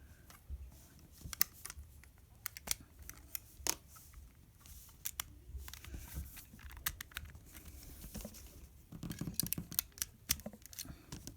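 Hard plastic LEGO pieces of a puzzle box clicking and clattering as they are handled, pushed and slid, in irregular light clicks, with a busier run of clicks about nine seconds in.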